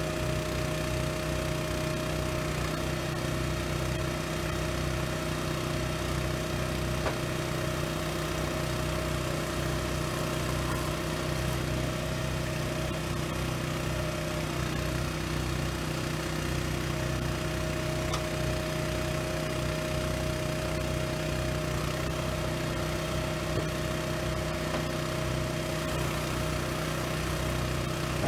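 Small firewood processor's engine running steadily, with a thin whine that drops out and returns a few times.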